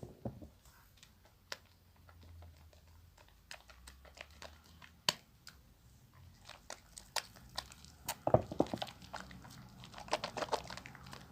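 Bar of soap being lathered in wet hands: scattered wet clicks and crackling of foam, with denser squelching about eight seconds in and again near the end.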